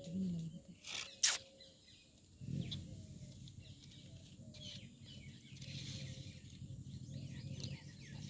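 Outdoor ambience with small birds chirping in the background. Two sharp clicks come about a second in, and a low steady hum sets in after about two and a half seconds.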